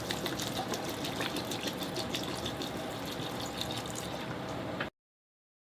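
Water pouring from a bottle in a steady stream, full of small splashes, that cuts off suddenly about five seconds in.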